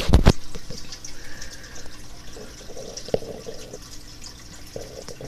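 Rain falling: a steady hiss with scattered drips and taps. A couple of loud thumps right at the start.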